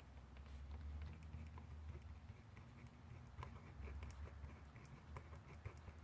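Faint handwriting on paper: a string of small, irregular taps and scratches from a writing tool, over a steady low hum.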